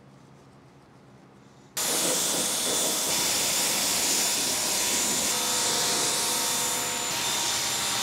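Pressure washer switching on about two seconds in and spraying water steadily onto the truck: a loud, even hiss with a faint steady whine over it, rinsing off the wheel cleaner.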